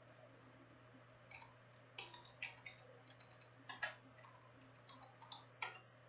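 Faint, irregular sharp clicks, about nine of them over four seconds, some in quick pairs, over near silence.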